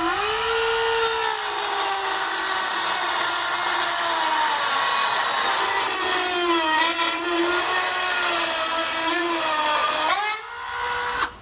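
Cutoff-wheel tool cutting through a steel bumper bracket. The motor is already spinning, and about a second in the wheel bites and a steady high hiss of grinding goes on for about nine seconds, the motor's pitch sagging under load. Near the end it comes off the metal, whines back up free-spinning for a moment and shuts off.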